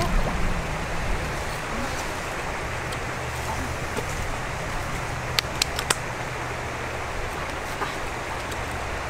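Steady wash of a small stream's running water, with a few sharp clicks a little past halfway.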